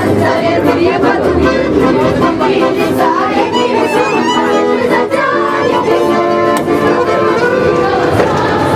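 Music playing: a melodic tune of held instrumental notes.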